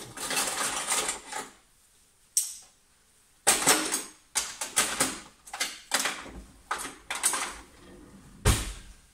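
Metal kitchen utensils clattering and rattling as a drawer of tongs, knives and other tools is rummaged through, in bursts of quick clinks, with a heavier knock near the end.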